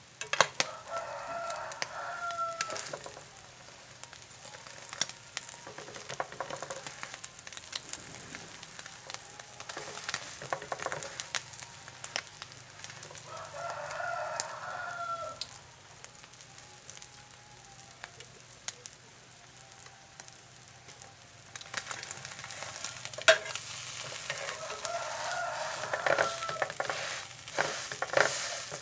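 Duck-egg and catfish-roe omelette frying in oil in a pan, sizzling steadily. A rooster crows three times: near the start, in the middle and near the end.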